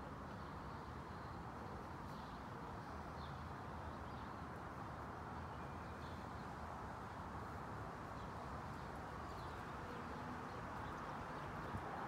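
Faint, steady outdoor background noise with a few faint, brief bird chirps scattered through it.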